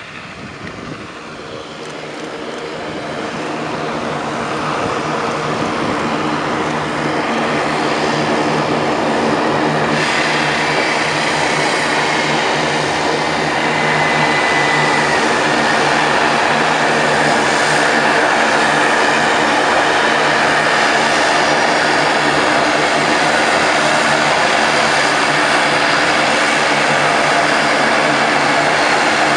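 Saab 2000's two Allison AE2100A turboprop engines running as the aircraft taxis in: a steady propeller drone with a high turbine whine, growing louder over the first several seconds and then holding steady.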